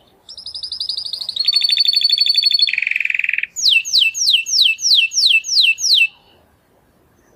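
Domestic canary singing one song phrase: a fast high trill, then a lower trill with a held high note, then a short low buzzy roll, ending in a run of about eight quick falling whistles. The song stops about a second before the end.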